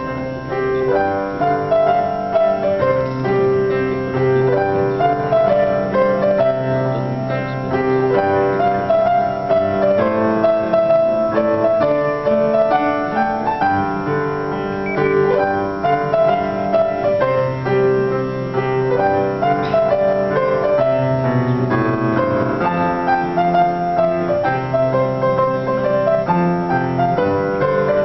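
Solo grand piano playing an anthem arrangement: a melody over sustained chords and bass notes, continuous and even in loudness.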